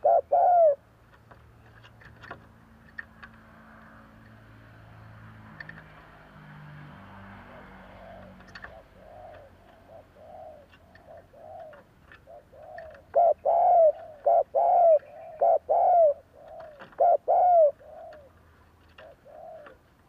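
Spotted dove cooing in quick runs of short, arched coo notes. A loud burst comes at the start, then a pause of several seconds with only faint clicks. A long run of coos follows from about eight seconds in, loudest in the middle of the run.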